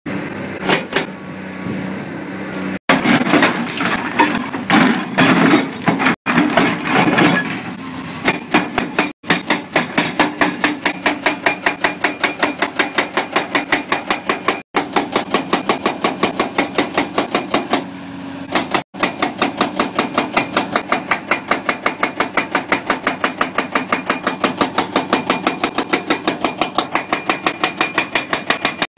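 Large excavator-mounted hydraulic breaker (CMB CM 550 TP) hammering, a steady run of rapid blows at about four to five a second after a few seconds of irregular clattering and crunching. The hammering stops briefly about two-thirds of the way through, then resumes.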